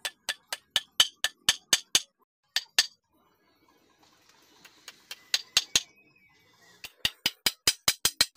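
Hammer knocking on a wooden table frame's joints: quick runs of sharp blows, about four a second, with a pause of a couple of seconds about halfway through.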